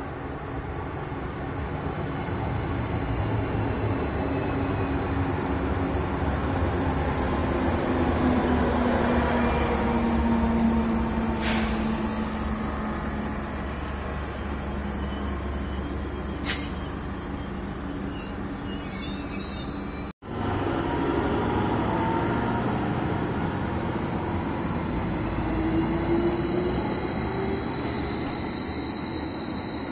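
Greater Anglia Class 755 bi-mode multiple units running on diesel through a small station: a steady rumble of engines and wheels, with the drive tone falling in pitch as a train slows. There are a couple of sharp clicks and a short high squeal, then after a brief break a rising drive tone as a train accelerates away.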